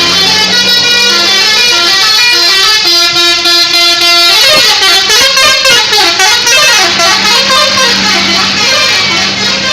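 Tour bus telolet horn, a multi-tone musical air horn, playing a stepped tune for about four seconds, then switching to a fast warbling, wavering melody. A steady low tone sounds underneath.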